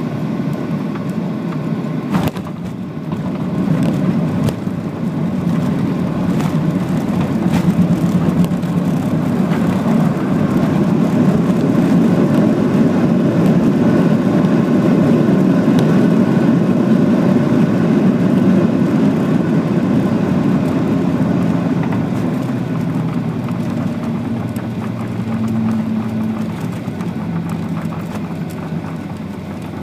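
Boeing 737 landing, heard from the cabin over the wing: a thump at touchdown about two seconds in, then a loud low roar from the engines and runway that builds over the next few seconds, typical of reverse thrust during the rollout. The roar holds and then eases off over the last several seconds as the jet slows.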